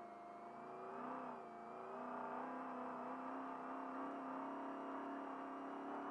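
Trophy truck race engine pulling under acceleration, heard from inside the cab. Its note wavers briefly about a second in, then holds and edges slowly upward as the truck gains speed.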